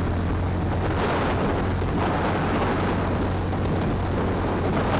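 Steady wind and road noise rushing over the camera microphone of a stock motorcycle riding at an even speed, with the engine humming low underneath.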